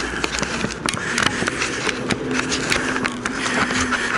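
Scraping, rubbing and irregular clicks of a motorcycle helmet being handled right against the helmet-mounted camera's microphone, with a faint steady hum in the second half.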